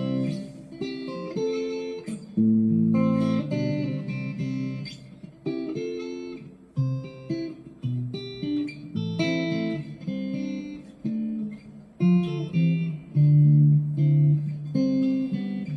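GEARIT GST-100 Strat-copy electric guitar played clean on its middle pickup: a run of strummed chords and single notes, each struck sharply and left to ring out.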